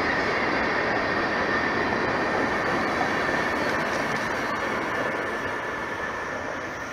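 Loaded tank cars of a Norfolk Southern mixed freight train rolling past: a steady rumble and clatter of steel wheels on rail with a thin high ringing tone through it, slowly fading as the train moves away.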